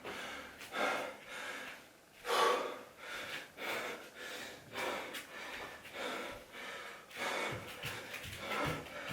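A boxer breathing out hard in quick, repeated bursts, a bit more than one a second, while throwing punch combinations at a home heavy bag. A couple of dull thuds near the end are punches landing on the bag.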